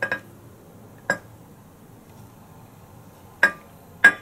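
Kitchen ware clinking: five short, sharp knocks with a brief ring, two together at the start and the rest a second or two apart, as the screen and blender parts are handled.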